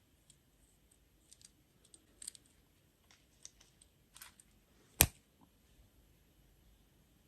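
Scattered light clicks and ticks of small objects being handled, with one sharp, much louder click about five seconds in.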